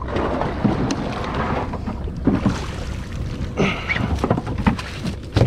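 Wind buffeting the microphone over the steady noise of a boat on the water, with several irregular thumps and knocks on the deck.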